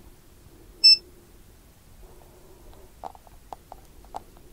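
The Owon CM2100B clamp meter gives one short electronic key beep about a second in, as its SELECT button is pressed to choose diode mode. Near the end come several light clicks as the plastic test probes are handled and set against the circuit board.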